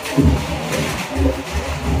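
Low, uneven rumble of a moving passenger train heard from its open doorway, with gusts of wind buffeting the microphone that swell louder a little past halfway.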